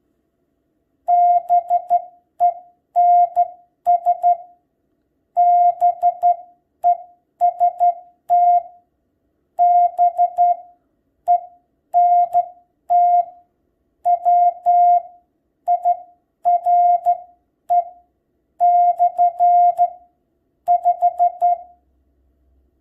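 Morse code hand-sent on a straight key through a Vectronics Classroom Code Oscillator: a single steady beep switched on and off in short dots and longer dashes, grouped into characters with short gaps. It starts about a second in and stops shortly before the end. The sending is practice, with the uneven timing and mistakes the sender expects on a straight key.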